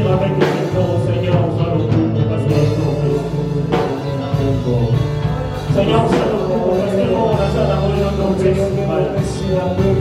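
Live worship music from a church band, with bass and guitar playing steadily and singing in places.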